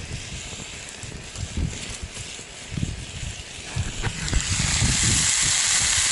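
Wind buffeting the microphone with a few small clicks of sticks being handled. About four and a half seconds in, a loud steady sizzle starts: trout frying in a pan over a wood fire.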